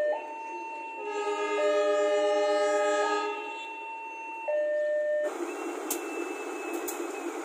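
Train air horns sounding in a sequence of steady blasts that step between pitches, with a louder chord of several notes from about one to three seconds in. From about five seconds in, a steady rushing noise carries a faint high tone.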